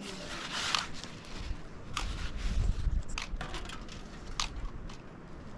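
Hands working dishes: a plastic bowl rubbed and scraped, with a few sharp clicks of utensils or pans. A low wind rumble runs on the microphone.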